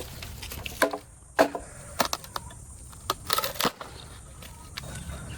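Bamboo being cut and handled: a handful of sharp, irregular knocks and cracks, the loudest about one and a half seconds in and a cluster near three and a half seconds, some of them ringing briefly.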